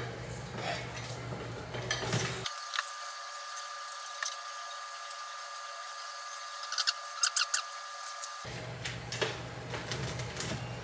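Small metal clinks and light knocks over faint room noise, with a quick cluster of sharp clinks about seven seconds in. A faint steady high whine starts about two and a half seconds in and stops about eight and a half seconds in.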